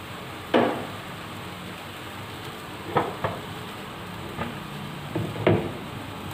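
Spice paste sizzling steadily in a wok over a gas flame while it is fried until fragrant. A metal spatula knocks and scrapes against the wok several times, loudest just after the start and near the end.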